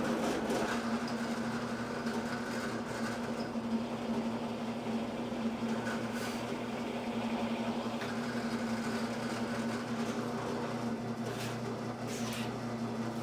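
Drill press motor running steadily with a constant hum while a step drill bit cuts a hole.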